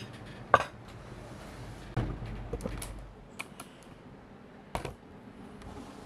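Cutlery and dishes clinking at a meal: a few separate sharp clinks and knocks, the loudest about half a second in.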